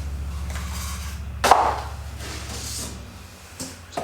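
Packing contents of a heater box being handled: soft rustling and one sharp knock about a second and a half in, over a steady low hum that stops about three seconds in.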